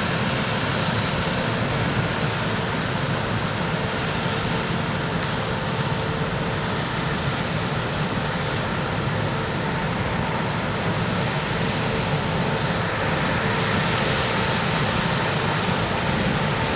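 Harvesting machinery, likely a Claas Lexion combine harvester, running steadily: an even mechanical din with a faint constant whine.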